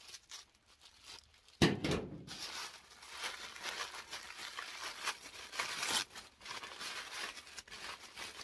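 Tissue paper wrapping crinkling and rustling as hands unwrap a small parcel, after one sharp thump about one and a half seconds in.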